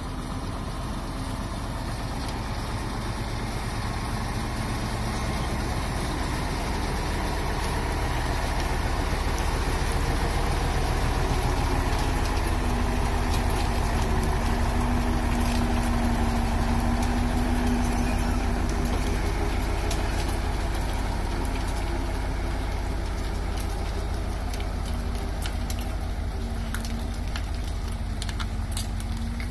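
Loaded Mitsubishi Fuso dump truck's diesel engine running as the truck drives slowly past. It grows louder as the truck approaches, is loudest about halfway through as it passes close by, then eases off as it pulls away.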